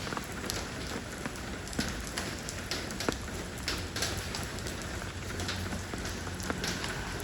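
Steady rain falling on stone, a constant hiss with many individual drops landing as sharp, irregular splats.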